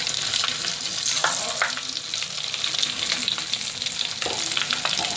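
Bath crackles popping and fizzing in a bowl of water: a dense, continuous crackle with a few sharper, louder pops.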